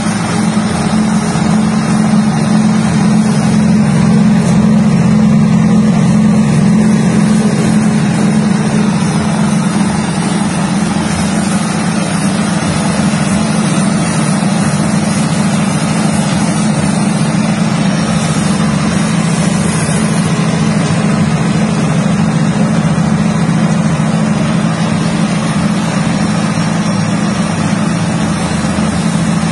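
Peanut-shelling machine running under power from its small engine: a loud, steady engine drone with the machine's hulling noise over it, as peanuts are shelled.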